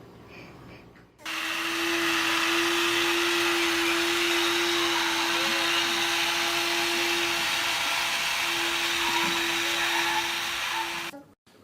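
An electric household appliance motor starts about a second in, runs with a steady whir and a constant hum, and cuts off shortly before the end.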